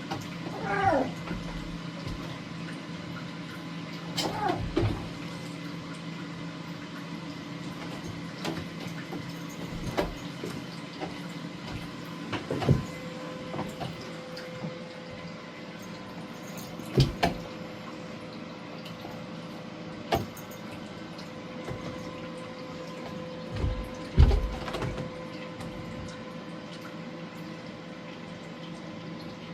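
Kitten making a few short chirping meows near the start, then scattered thumps and knocks as she scrambles and lands on a cat tower, over a faint steady hum.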